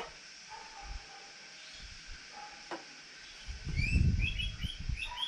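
Small birds chirping, a run of short high chirps in the second half. Over them, a dull low rumble of knocking and handling from about three and a half seconds in to near the end.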